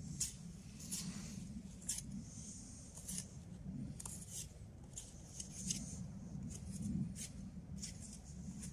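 Faint, irregular scratching and scraping from hand work with a stick at the foot of a wooden post, short sharp sounds about once a second, over a low steady background rumble.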